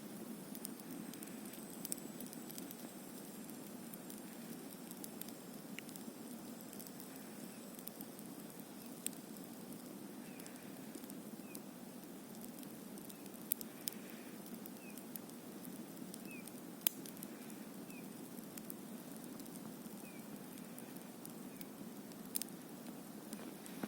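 Wood campfire burning with a steady low rush, broken by scattered sharp crackles and pops, a few of them louder.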